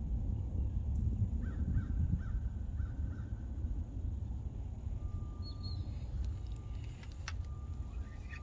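Wind rumbling on the microphone, with a crow cawing four or five times in quick succession in the first few seconds.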